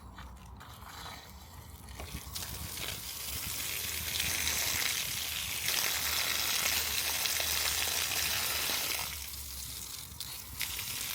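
Water gushing from an outside tap turned on to test a freshly repaired copper supply pipe. It builds up about two seconds in, runs strongly, and eases off near the end.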